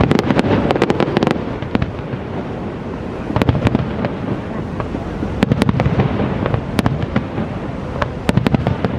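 Aerial fireworks shells bursting: sharp bangs and crackling pops come in clusters every second or two, over a steady rushing background noise.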